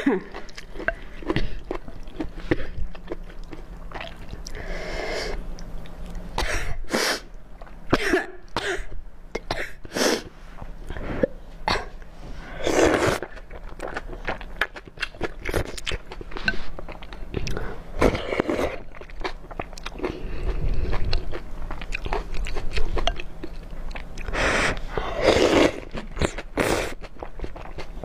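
Close-up mouth sounds of a person eating wide noodles in broth: wet chewing and smacking clicks, broken by several long slurps as noodles are sucked in.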